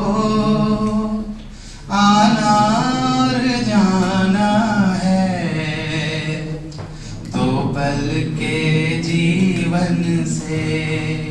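A man singing a slow, melodic song unaccompanied, holding long wavering notes in phrases, with brief breaths between phrases about two seconds in and again around seven seconds.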